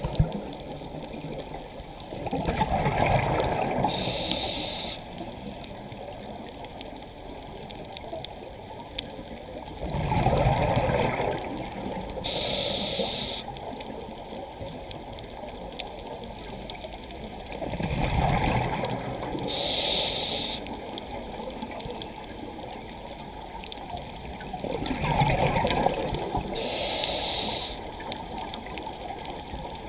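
Scuba diver breathing through a regulator underwater. Every seven to eight seconds a low gurgling burst of exhaled bubbles is followed by the short hiss of an inhalation, four breaths in all. Faint clicking crackles in between.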